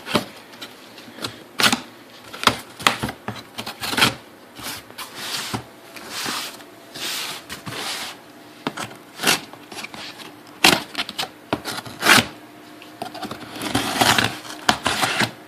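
A cardboard shipping box being opened and unpacked by hand: irregular sharp clicks and knocks with stretches of rustling as flaps and packing material are handled.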